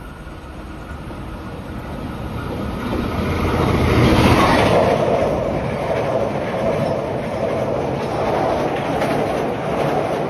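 Loco-hauled KA Jayakarta passenger train approaching and passing close by. The rumble builds to its loudest about four seconds in as the diesel-electric locomotive goes past. The coaches then run by with a steady clickety-clack of wheels on the rails.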